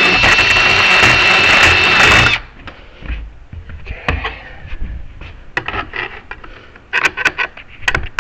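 A small power tool's motor runs steadily with a high whine, then cuts off suddenly about two seconds in. Light clicks and scrapes of tool and hardware handling follow.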